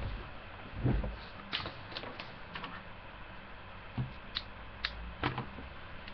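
Scattered bumps, clicks and rustles from a person moving right next to a webcam's microphone, over a steady background hiss. About eight short knocks, the loudest about a second in and again near the end.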